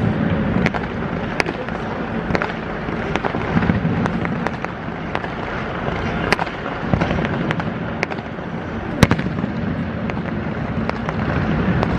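Aerial fireworks going off: a dense, continuous crackle with many sharp bangs, one louder bang about nine seconds in.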